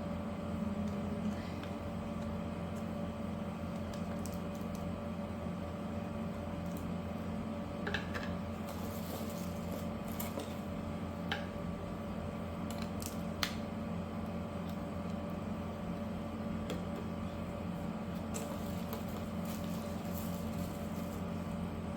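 A steady background hum with several fixed tones, with scattered clicks and brief rustles from figure packaging being handled and opened.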